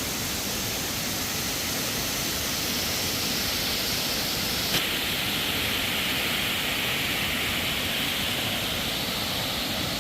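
Waterfall rushing: a steady, even hiss of falling water, with one faint click about five seconds in.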